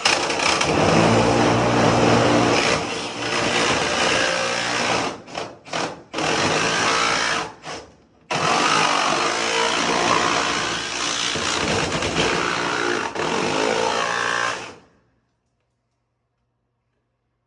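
Jigsaw cutting sheet-metal HVAC duct, running in long loud runs broken by several brief stops, then cutting off abruptly with silence after.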